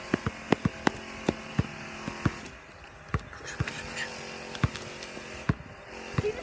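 A basketball bouncing on a paved driveway as a player dribbles: a quick run of sharp bounces in the first second and a half, then a few more single bounces spaced out.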